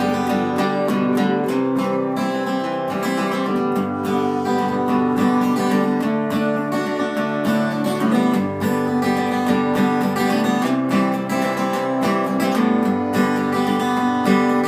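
Acoustic guitar strummed and picked in a bluegrass rhythm, an instrumental passage with no singing.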